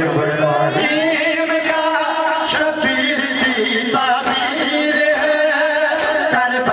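A male reciter chanting a noha, a Shia lament, into a microphone in a slow, held, wavering melody. Beats from mourners striking their chests (matam) fall in time, a little under one a second.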